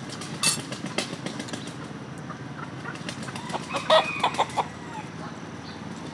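Domestic chickens clucking, with a few short, louder calls about four seconds in, over a steady low hum and scattered clicks.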